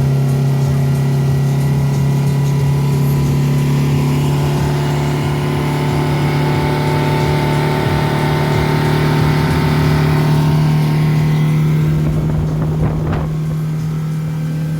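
Outboard motor of a Grizzly 580 aluminium boat running at steady revs under way, with water and wind rushing that swells mid-way and eases near the end. A few short knocks about 13 s in.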